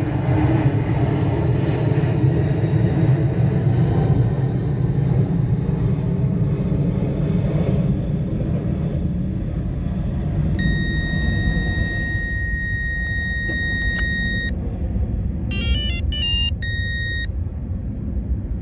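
Steady low mechanical rumble, with a high electronic beep starting about ten seconds in: one long steady beep of about four seconds, a quick run of changing tones, then a short beep.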